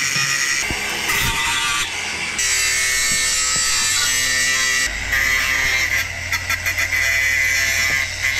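AEG cordless angle grinder running at speed, its disc grinding on the steel of an old shovel: a steady high motor whine over a rasping hiss. The pitch and texture change abruptly a few times, about two and a half and five seconds in.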